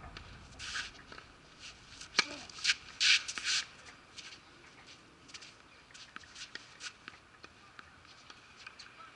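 Tennis shoes scuffing and sliding on the court surface in short, scratchy scrapes as a player moves about, with one sharp click about two seconds in.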